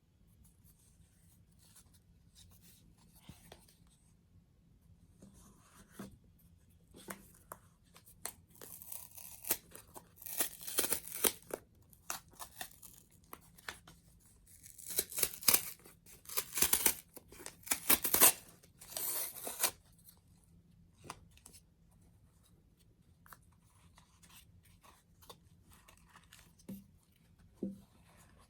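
Shipping packaging being torn open by hand: rustling bursts of tearing, loudest through the middle, with quieter handling and a few clicks before and after.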